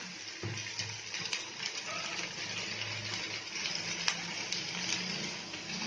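Chopped onions frying in oil in a kadai: a steady sizzle, with a few sharp taps and scrapes of a steel spatula against the pan.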